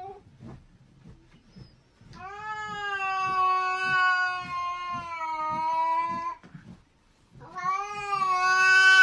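A cat yowling in a standoff with another cat: two long, drawn-out, steady yowls, the first starting about two seconds in and lasting some four seconds, the second beginning near the end, a warning cry before a fight.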